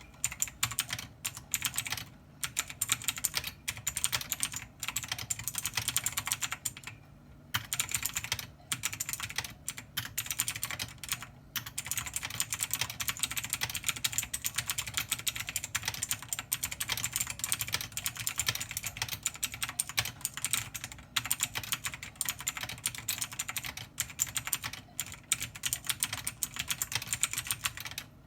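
Fast, continuous typing on a computer keyboard, many keystrokes a second, broken by a few short pauses.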